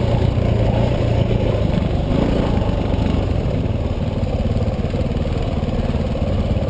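Single-cylinder four-stroke engine of a 2010 KTM 450 XC-W dirt bike running steadily at low revs.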